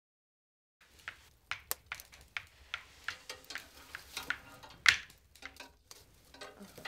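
Monopoly game pieces being set down and moved on the board: a run of small, irregular clicks and taps, the loudest about five seconds in, after a second of silence at the start.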